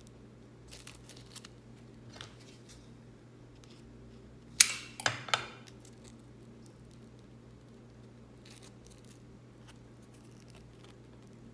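Glittered EVA foam handled and pressed together while hot glue sets: faint rubbing and ticks, with a short cluster of three sharp scrapes or clicks about halfway through.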